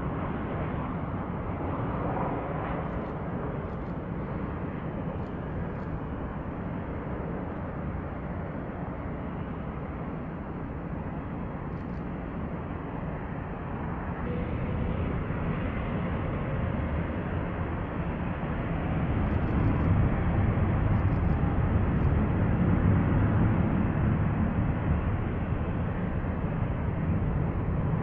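Airbus A350's Rolls-Royce Trent XWB jet engines running as it taxis: a steady jet rumble that grows louder about two-thirds of the way through.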